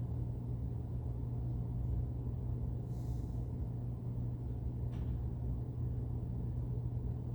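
Steady low room hum with no speech, with a faint brief hiss about three seconds in and a soft click about five seconds in.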